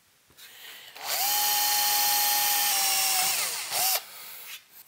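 Cordless drill with a 1/8-inch bit drilling a pilot hole through a thin metal chassis: a steady motor whine for about two seconds that winds down, then a brief second burst of the drill.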